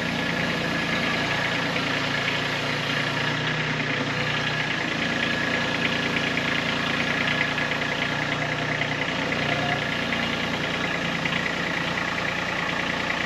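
Kubota B2301 tractor's three-cylinder diesel engine running steadily while it powers a BH70 backhoe.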